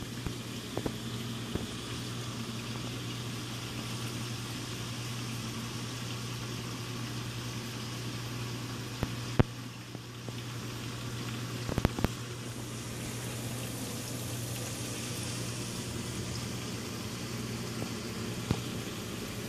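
Reef aquarium equipment running: a steady low electrical hum from the pump, with water bubbling and trickling through the tank. A few sharp clicks break in, around the middle and once near the end.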